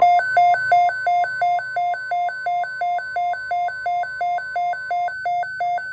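Weather radio alert alarm: an electronic beep alternating between a low and a high pitch about three times a second, over a steady NOAA Weather Radio warning alarm tone that cuts off about five seconds in. The tones announce an emergency alert broadcast.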